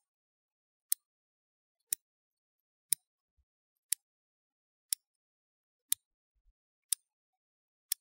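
Clock ticking once a second, each tick a short, sharp, high click, all alike, with silence between.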